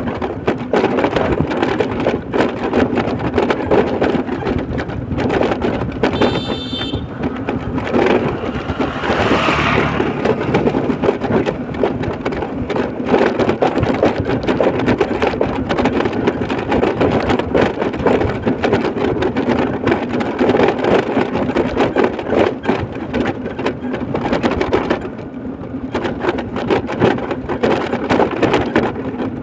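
A vehicle travelling over a rough road under construction: steady engine and road rumble with constant crackling and rattling. A brief high tone sounds about six seconds in, and a swell of noise follows a few seconds later.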